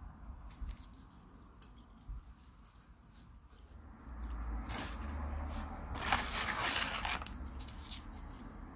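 Handling noise: scattered light clicks from a metal watch bracelet being moved. From about four seconds in, a louder rustling of nitrile gloves and a microfibre cloth rubbing over the watch dies away a little after seven seconds.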